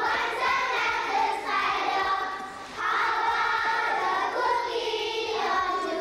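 Children's voices singing a song together, in held notes that glide from one pitch to the next, with a short breath pause about two and a half seconds in.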